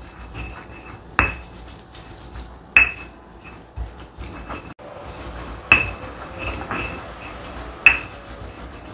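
A stone pestle grinding fried chillies and garlic in oil in a stone mortar (Indonesian cobek and ulekan). It makes a steady scraping, crushing noise, with four sharp knocks of stone on stone spread through it.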